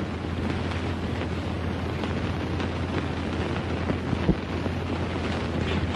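Steady hiss and low hum of a worn 1940s film soundtrack, with a few faint ticks.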